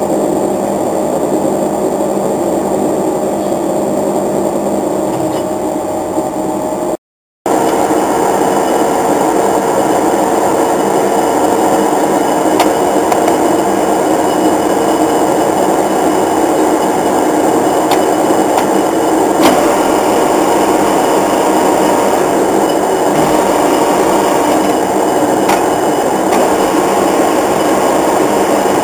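Large SNA 800 x 3000 engine lathe running, with a steady mechanical whirr from its drive and gearing and a few faint ticks. The sound cuts out for a moment about seven seconds in, then resumes slightly louder.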